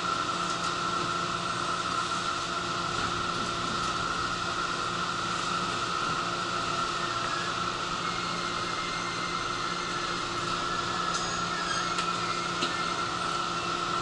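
Steady interior noise of a JR 211-series electric commuter car: an even hum with a few constant tones from the car's equipment and ventilation, and a few faint high ticks near the end.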